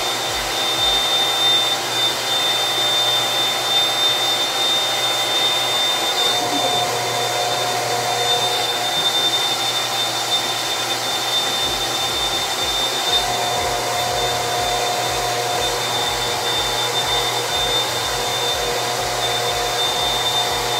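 Handheld hair dryer blowing steadily, with a steady high whine over the rush of air. About halfway through, a low, rapid flutter joins in.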